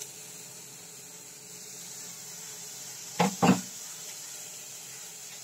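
Two quick clunks of kitchenware, close together about three seconds in, over a steady faint hiss.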